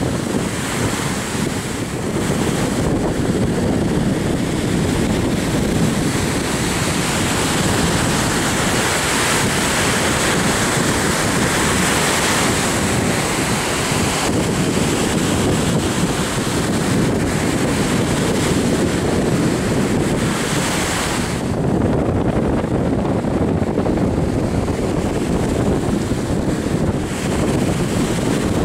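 Wind buffeting the microphone over the steady wash of surf breaking on the shore. The higher hiss drops away about three-quarters of the way through, leaving mostly the low rumble of wind and waves.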